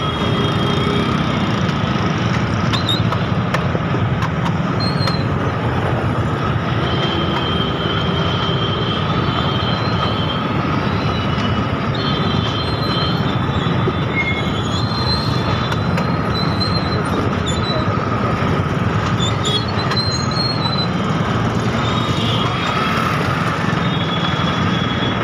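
Dense motorcycle traffic crawling along: many small engines running together in a steady din, with a steady whine and short, high-pitched squeals and beeps scattered through it.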